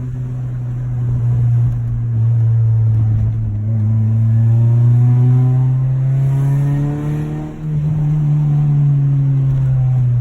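Car engine running under load, its note climbing slowly, with a brief dip about seven and a half seconds in and a falling pitch near the end.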